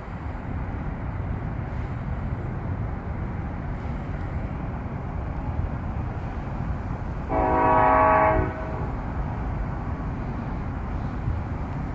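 A distant train horn sounds once, a single blast of a little over a second about seven seconds in, over a steady low rumble.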